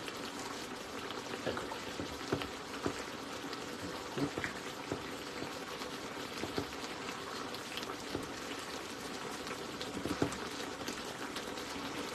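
Pans of tagliatelle in red mullet and tomato sauce simmering on the stove: a steady sizzle and bubble with scattered small pops and spits.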